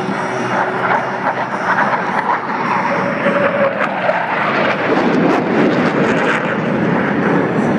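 Jet engine noise from Blue Angels F/A-18 Hornets flying past: a steady, loud rushing roar that grows heavier and deeper about halfway through as the jets come closer.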